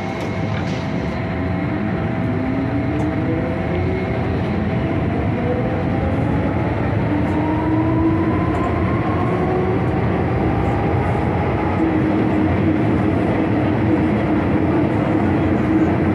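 MTR Tsuen Wan Line M-Train heard from inside the car as it accelerates away from a station. The traction motors' whine rises in pitch in several tones over the first ten seconds or so, then holds steady over the train's running rumble.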